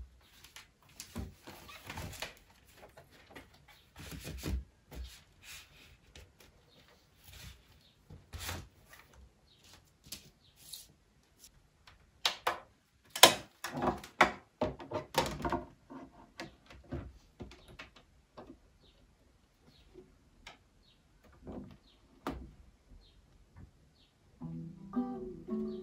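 Vinyl record and turntable being handled: scattered clicks, knocks and rustles as the record comes out of its sleeve, goes onto the platter and the clear plastic dust cover is worked. The loudest cluster comes about halfway through. Music starts near the end.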